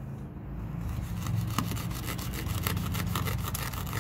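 A knife blade sawing back and forth through thick natural-fibre rope on a wooden board, a rapid run of fibrous scraping strokes that starts about a second in. The blade is slow to bite, which the users put down to a thick grind.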